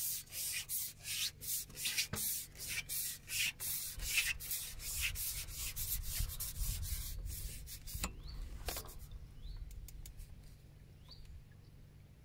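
Carbon fishing pole being pulled back over the bank, its sections rubbing and sliding in a quick run of scraping strokes, about three or four a second. One sharp click about eight seconds in, after which the scraping stops.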